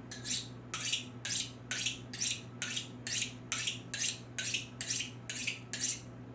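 About a dozen quick scraping strokes of a stainless carving knife's blade along a coarse sharpener, roughly two a second, as the edge is rough-ground. A steady low hum runs underneath.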